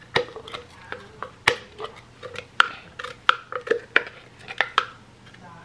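A spoon and a NutriBullet blender cup knocking against each other and the rim of a plate-sized bowl: about fifteen sharp, irregular clinks with a short ring, as ground parsley, celery and green onion are knocked out of the cup. The tapping stops about five seconds in.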